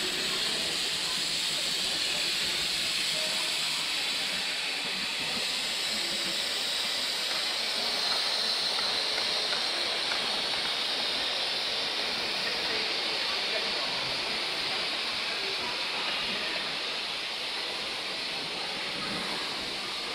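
Steady hiss of steam from 5-inch gauge live-steam model locomotives, even and unbroken, with no clear exhaust beat.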